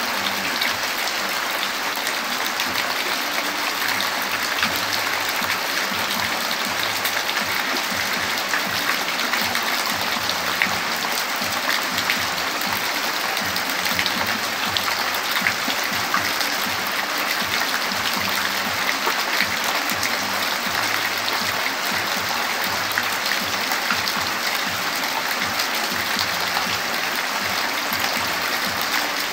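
Rain falling steadily: a dense, even hiss of drops with many small individual drop hits scattered through it.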